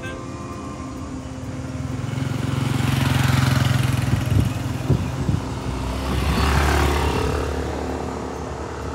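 Road traffic: two motor vehicles pass one after the other, the first loudest about three and a half seconds in and the second about six and a half seconds in, each swelling and fading with a low engine hum beneath the tyre noise.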